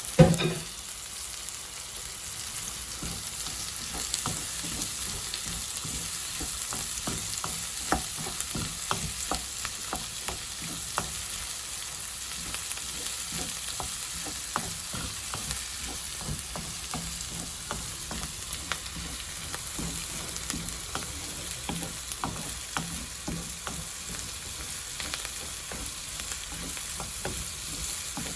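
Chopped onions, capsicums and spring onions sizzling in hot oil in a pan, stirred continuously, with frequent short taps and scrapes of the stirring utensil against the pan.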